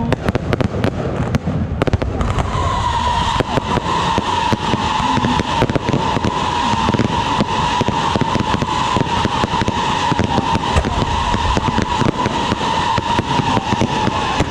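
Long strings of firecrackers going off in a dense, unbroken crackle. About two seconds in, a steady high whistle-like tone starts and holds over the crackle.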